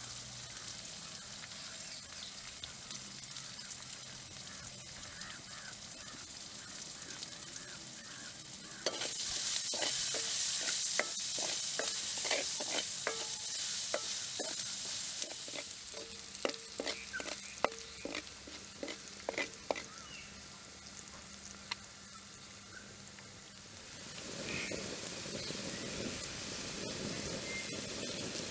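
Shallots and green chillies frying in a blackened metal wok over a wood fire: a steady sizzle that grows much louder about nine seconds in, with a run of spatula scrapes and stirring strokes against the pan. Near the end a dark liquid is poured in from a coconut shell and bubbles in the hot oil, giving a fuller sizzle.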